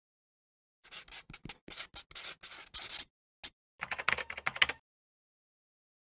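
A run of short, irregular scratchy clicks, like keys or a pen scratching, in two bursts: about two seconds, then a brief gap, then about one more second.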